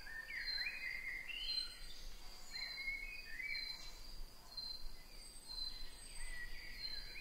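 Birds chirping in short, quick phrases over a steady, high-pitched insect buzz.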